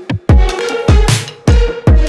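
Electronic background music with a heavy, steady beat: deep bass drum thumps and sharp snare-like hits over sustained synth tones.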